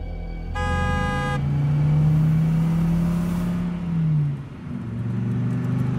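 A car horn sounds once, briefly, then a car engine runs with its pitch rising a little before it drops about four seconds in and settles to a lower, steady idle, as a car pulls up and stops.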